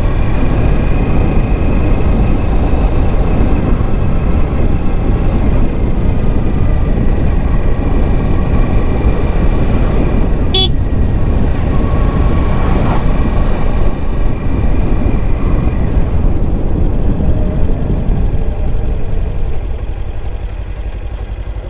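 Kawasaki Ninja 300 parallel-twin engine running under way, heard through heavy wind rush on the mount-camera microphone, with a thin steady whine over it. A short sharp sound about ten seconds in. Near the end the engine and wind noise drop away as the bike slows almost to a stop.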